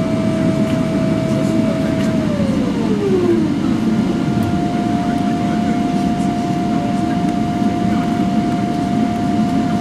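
Inside the cabin of a Boeing 777-300ER taxiing: the steady rumble of its GE90-115B engines at low thrust, with a steady whine on top. About two seconds in, one whine glides down in pitch over a couple of seconds while a slightly higher steady whine takes its place.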